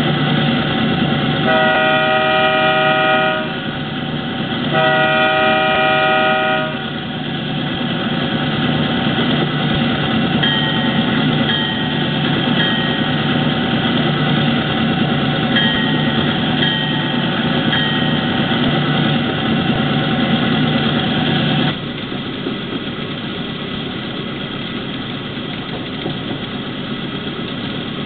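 Sound decoder of an HO scale Walthers EMD GP9M model diesel locomotive playing its diesel engine rumble, with two long horn blasts near the start and a run of short high toots in the middle. The engine sound drops suddenly to a lower, quieter level about three-quarters of the way through.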